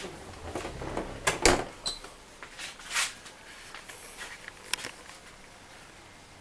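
A door being handled: a few short knocks and clicks, the loudest about a second and a half in, then the room goes quiet.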